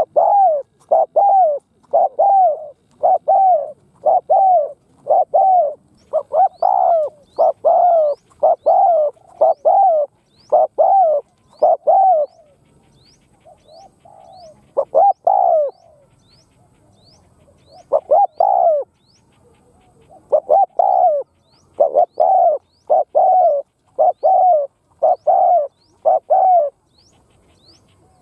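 Caged spotted dove giving fast runs of short coos, about two a second, broken by a couple of pauses: the bowing 'gù' display call of a decoy bird, used to provoke wild spotted doves. A small bird chirps faintly with thin rising notes.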